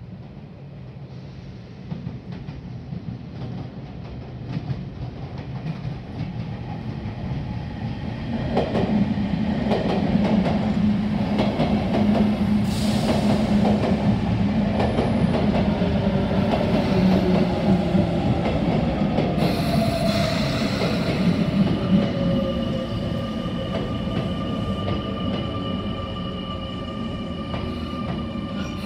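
Sotetsu 8000 series electric train running in and braking. The rumble builds, and the wheels click over the rail joints. From about two-thirds of the way through, the motor whine falls in pitch as the train slows, and a steady high brake squeal comes in near the end.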